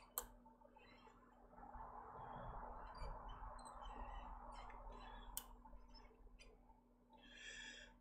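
Faint clicks and small metallic squeaks of repair tools working the metal shield off an iPhone SE logic board, with two sharper clicks and a soft hiss in the middle.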